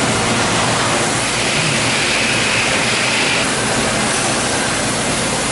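Steady loud hiss of machine-shop noise, with a faint low hum under it.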